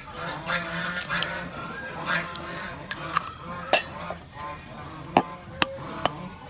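Chicken eggs tapped and cracked against the rim of a clay pot, heard as a few sharp clicks in the second half, over bird calls in the background.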